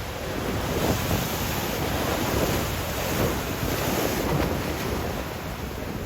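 Ocean surf breaking and washing up the beach, a wave's hiss swelling about a second in and easing after about four seconds. The surf is swell sent in by an approaching typhoon. Wind rumbles on the microphone throughout.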